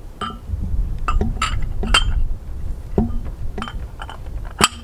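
Steel parts of a pallet buster clinking together as the pieces are handled and fitted, about eight sharp metallic clinks, some ringing briefly, over a low rumble.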